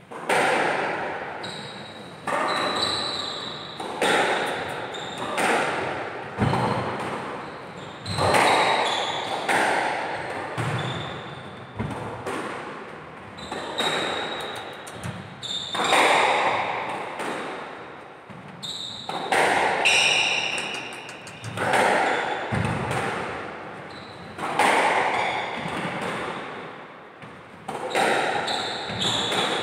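A squash rally: the ball cracking off rackets and the walls every second or two, each hit ringing in the enclosed court, with sneakers squeaking on the wooden floor between shots.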